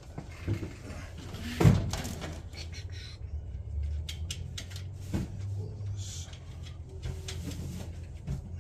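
Metal parts and hand tools knocking and clicking as a replacement alternator is handled and fitted, with one sharp knock about two seconds in and another about five seconds in, over a steady low hum.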